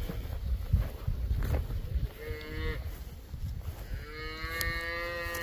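Cattle mooing twice: a short moo about two seconds in, then a longer, drawn-out moo from about four seconds, over a low rumble that is strongest in the first two seconds.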